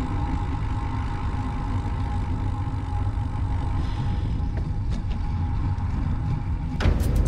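Wind buffeting the camera microphone as a bicycle rolls along the road, a steady low rumble with a constant high whine over it. Music comes in near the end.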